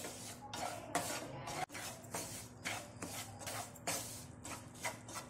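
Wooden spatula scraping and stirring semolina as it roasts in a non-stick frying pan, in quick repeated strokes, about two a second.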